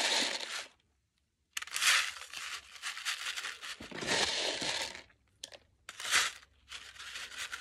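Rolled notebook-paper funnel crinkling and rustling in the hand as filling is worked down through it into a balloon, in several bursts with two short silent pauses.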